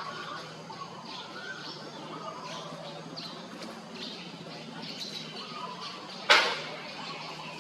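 Birds chirping in short, scattered calls over a steady background hum, with one loud sharp crack a little over six seconds in.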